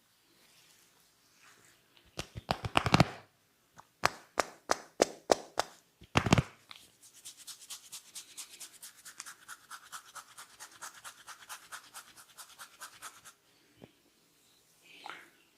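A barber's hands working the hair and scalp close to the microphone: a quick run of sharp crackling snaps, then single snaps about two a second, then several seconds of rapid, even scratching.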